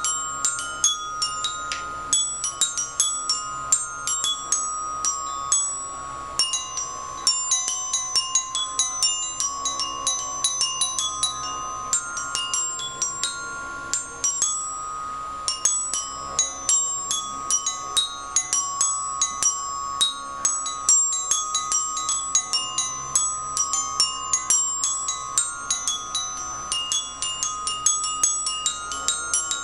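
Glockenspiel played with mallets: a quick, continuous run of struck metal-bar notes, several a second, each ringing on. A steady held tone sounds underneath and shifts pitch a few times.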